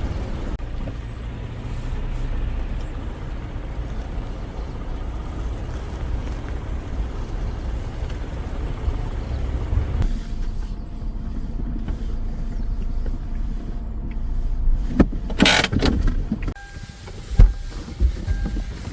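Steady low rumble of a vehicle driving. About fifteen seconds in comes a brief loud rushing sound, after which the rumble is quieter, with faint steady tones.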